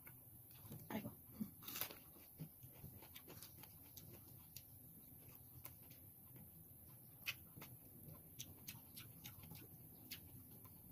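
Faint eating sounds of a person chewing raw salad vegetables: scattered small crunches and wet mouth clicks, with a few louder ones in the first two seconds.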